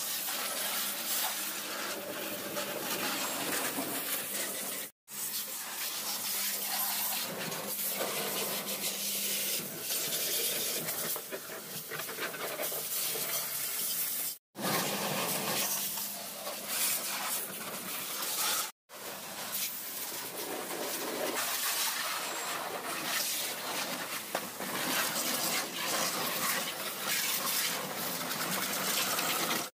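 High-pressure washer jet spraying water onto a car's body, wheel arch and bumper: a steady hiss of spray, with a faint low hum underneath in places. It breaks off three times in brief dropouts.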